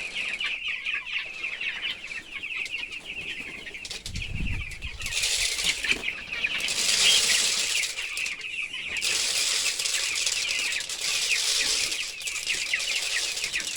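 A flock of chickens at feeding time, cheeping steadily and densely. Over the cheeping come several long stretches of rustling and scuffling, and one low thump a little before the middle.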